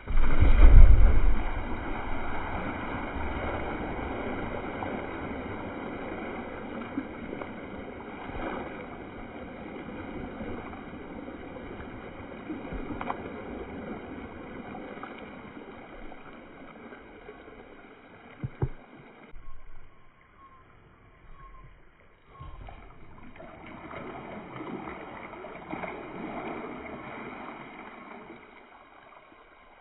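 A full plastic water drum tipped over onto sand: a heavy thud as it lands, then water gushing out in a steady rush that slowly fades. After a short lull, water pours and splashes again as another drum is tipped and emptied.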